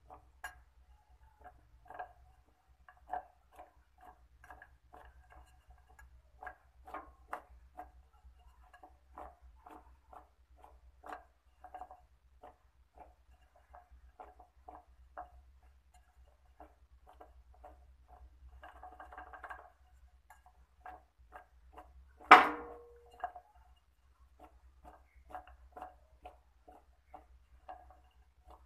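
Glass mixing bowl shaken and tilted by hand to toss sliced pieces in flour: light, irregular clicks and taps of glass and food, a short rustle, then one sharp glass clink with a brief ring about three-quarters of the way through.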